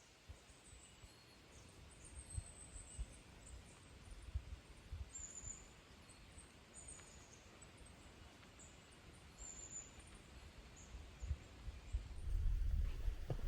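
Small birds calling: short, high, thin chirps repeated on and off, over a low rumble with soft thumps that grows loudest near the end.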